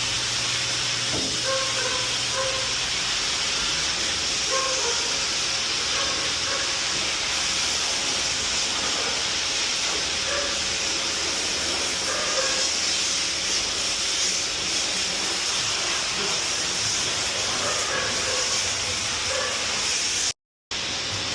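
Steady, loud hissing rush of grooming equipment, with faint short high sounds over it; it cuts out briefly near the end.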